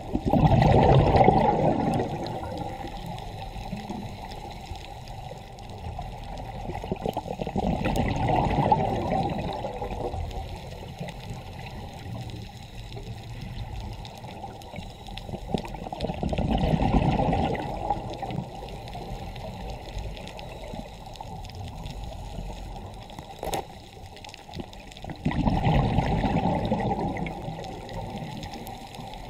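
Scuba diver's exhaled bubbles gurgling out of a regulator, heard underwater, in four surges about eight or nine seconds apart, with a steady low underwater hiss between breaths.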